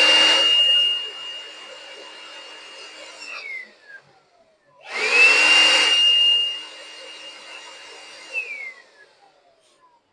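Electric air blower blowing loose coffee grounds out of the inside of a coffee grinder, in two blasts. Each blast starts with a loud rush of air and a motor whine that rises quickly to a high steady pitch, holds for a few seconds, then falls away as the blower winds down.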